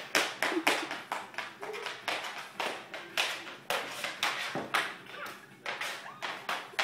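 A child's dance steps tapping on a hardwood floor: quick, irregular sharp taps, several a second.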